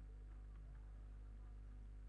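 Faint steady electrical hum: a low buzz with evenly spaced overtones, and nothing else of note.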